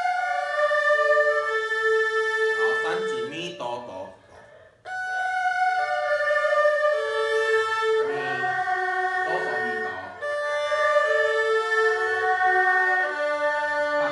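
Erhu playing a broken-chord sequence exercise: phrases of about four held, bowed notes, each stepping through the notes of the chord, with short breaks between phrases.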